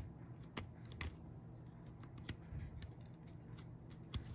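Faint, irregular ticks and light scrapes of a metal pick prodding and scratching at the leads of an electrolytic capacitor on a hard-drive circuit board, working at what looks like goop from a leaked capacitor.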